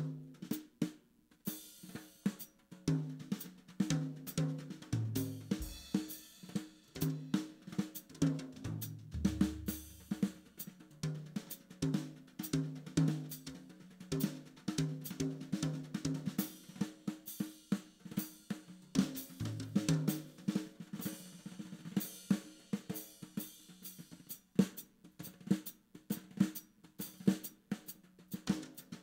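Live instrumental band music: a drum kit playing busily with snare, hi-hat and cymbals over electric bass and electric keyboard.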